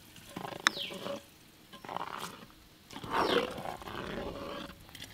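A steel mug scooping thick green sugar syrup out of a steel basin and pouring it into a clay pot. A sharp metal clink and scrape comes about a second in, and a longer stretch of scraping and splashing follows near the end.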